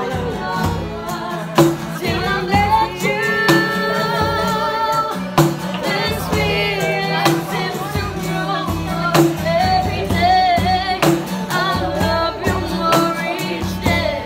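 Live music: a woman singing, with vibrato in her voice, to acoustic guitar and conga drums, which keep a steady beat.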